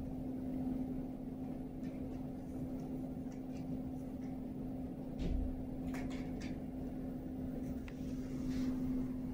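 Steady low hum of room background, with a soft low thump about five seconds in and a few faint light ticks soon after.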